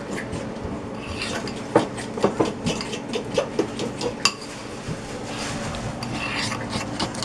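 A metal fork stirring and mashing a thick, creamy mixture in a bowl, with irregular clinks and scrapes of the fork against the bowl.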